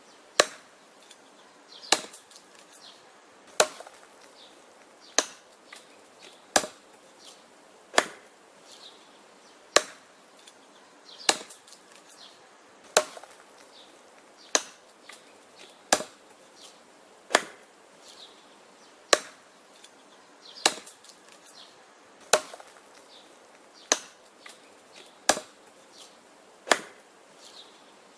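An axe chopping wood in a steady rhythm: sharp, hard strikes about every one and a half seconds, with fainter knocks and cracks between them.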